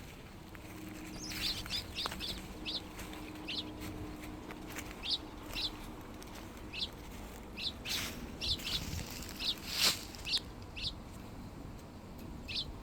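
A songbird giving short, sharp call notes, about fifteen at irregular intervals. Two louder rustling crackles come near the end, and a faint low drone runs through the first half.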